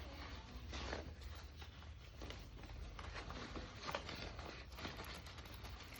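Packaged snack items and plastic wrappers being handled: a handful of short rustles and crinkles spread over a few seconds, over a low steady hum.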